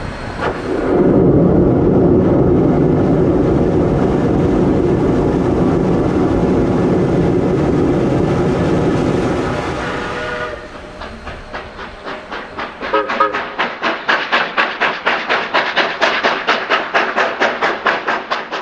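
Georgetown Loop Railroad's No. 40 steam locomotive heard from its cab: a loud, steady rush lasting about nine seconds. It drops away to a fast, even beat of about five strokes a second that grows louder near the end.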